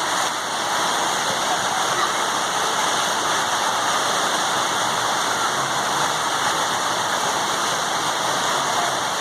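Rain falling, an even, unbroken hiss.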